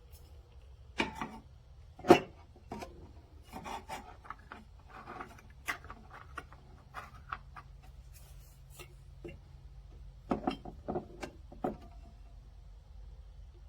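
Irregular handling noises: a scattering of knocks, clicks and short scraping rubs, the sharpest knock about two seconds in and a quick cluster of knocks near the end.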